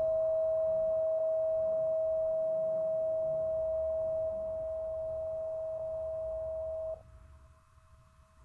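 A Solfeggio-set tuning fork ringing with a single steady pure tone that slowly fades, then stops suddenly about seven seconds in, as if damped, leaving only a faint trace of the tone.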